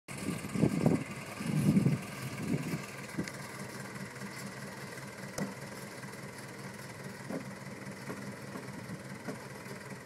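Small crawler bulldozer's diesel engine running steadily, with a few louder bursts in the first two seconds.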